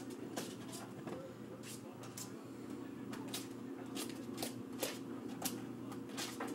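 Yorkshire terrier scrabbling with its paws under a plastic hamper to reach a toy: irregular short scratching scrapes, a few a second, over a steady low hum.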